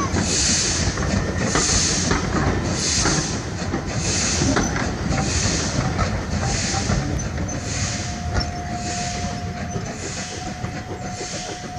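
Coaches of a steam-hauled passenger train rolling past at low speed, wheels rumbling and clicking over the rail joints, fading as the train draws away. A soft rhythmic hiss a little more than once a second is the exhaust beat of the LMS Black 5 steam locomotive pulling away at the head of the train.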